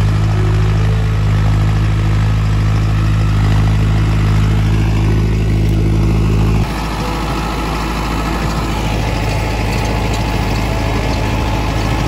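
Mahindra Arjun 555 tractor's diesel engine running steadily while it pulls a rotavator through wet soil in low gear. About six and a half seconds in the sound cuts to a slightly quieter, rougher engine noise.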